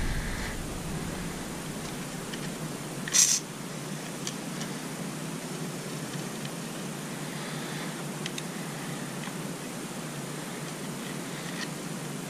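A short hiss of WD-40 aerosol sprayed through its straw about three seconds in, penetrating oil going onto a stuck oil seal; otherwise a low steady background hum with a few faint ticks.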